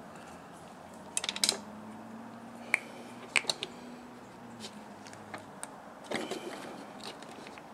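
Scattered small clicks and taps of a plastic bottle and its cap being handled, with a brief rustle near the end and a faint low hum in the first half.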